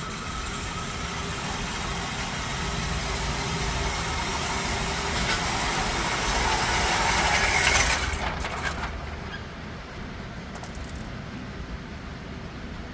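A car's engine running, its steady rumble growing louder for about eight seconds and then easing off, with a few light clicks after.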